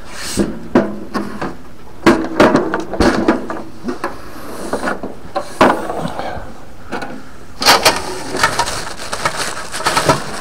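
Cardboard box and packing being handled and pulled about: irregular scraping, rustling and knocks.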